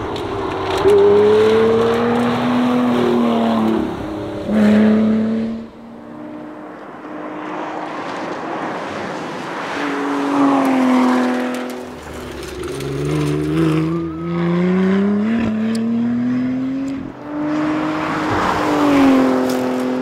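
Lotus Exige Sport 350's supercharged V6 engine at full throttle on several fast passes, its pitch climbing through the gears and falling away each time the car lifts off or shifts.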